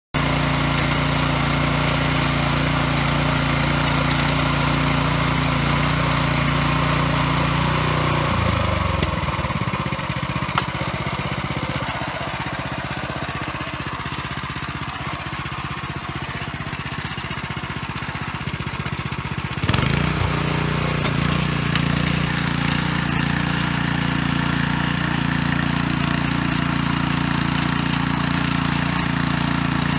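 Husqvarna front-tine tiller's small petrol engine running steadily while cultivating soil. About eight seconds in its note sinks and it runs lower and quieter. About twenty seconds in it jumps back to its steady higher running note.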